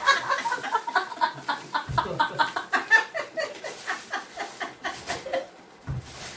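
People laughing and chuckling in quick, repeated bursts that fade out near the end.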